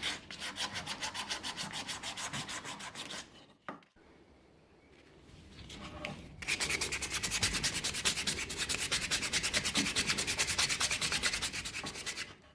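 Hand sanding with rapid back-and-forth strokes, several a second, in two runs separated by a quieter pause about a third of the way in.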